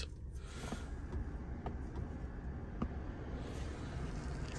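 Steady low rumble of the 2019 Cadillac CTS's 2.0-litre turbo four-cylinder idling, heard inside the cabin, with a few faint clicks of dashboard buttons being pressed.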